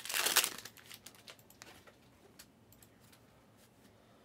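Card packaging crinkling for about half a second, then a few light clicks and taps that fade out.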